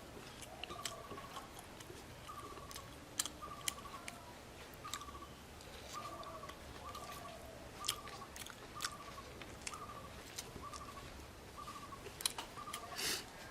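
Someone eating with wet smacking and clicking mouth sounds, one louder smack near the end. Behind it a bird repeats one short call about every three-quarters of a second.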